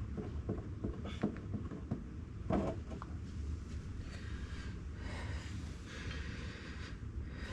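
Scattered clunks, knocks and scraping as an oil jug and tools are worked into place under a tractor, one knock louder about two and a half seconds in, with a rough hiss in the second half. A steady low hum runs underneath.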